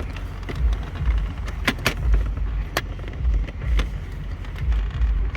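Plastic interior trim being handled and pulled loose, giving a few sharp clicks over a steady low rumble.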